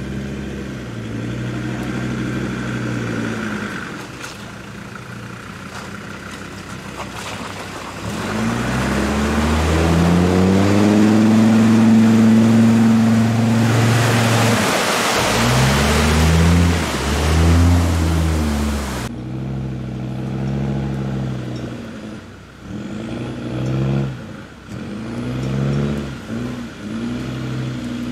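Land Rover Discovery TD5's five-cylinder turbodiesel revving in repeated rising and falling surges as the truck pushes through deep mud. About halfway through, a loud rush of mud and water sprayed by the spinning tyres joins the engine, then cuts off suddenly.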